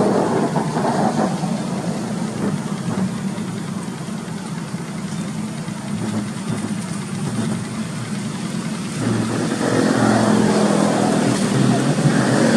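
Steady running hum of a motor vehicle engine, growing louder about nine seconds in.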